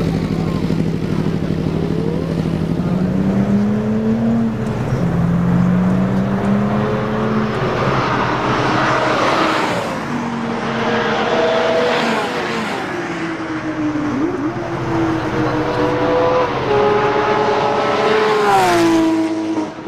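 High-performance car engines on a race circuit, their notes rising and falling as the cars accelerate and shift gears. Near the end a car passes close by, and its engine note drops sharply as it goes past.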